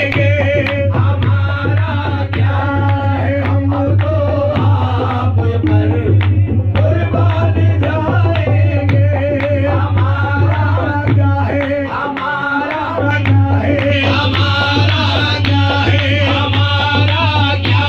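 Qawwali music: male voices singing over a harmonium, with tabla and rhythmic percussive strokes keeping the beat.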